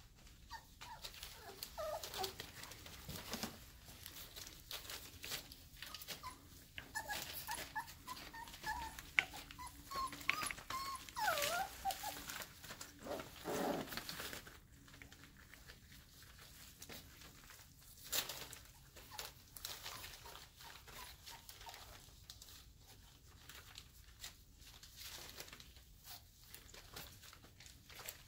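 Five-week-old Airedale Terrier puppies whimpering and squeaking with short high calls as they play, mostly in the first half, amid the scuffling and scratching of small paws and bodies on a blanket.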